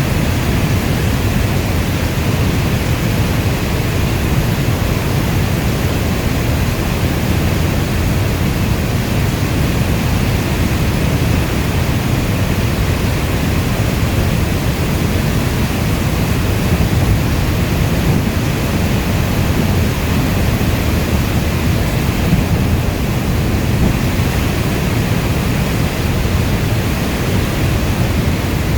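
Steady heavy rainfall: a dense, unbroken rushing hiss, heaviest in the low end, with no separate drops or claps standing out.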